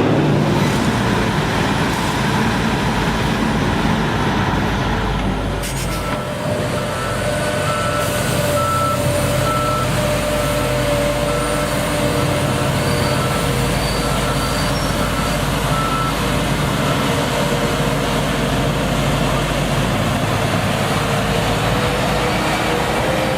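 Heavy construction machine's diesel engine running steadily, with a reversing alarm beeping at a regular pace, a little faster than once a second, for about ten seconds through the middle.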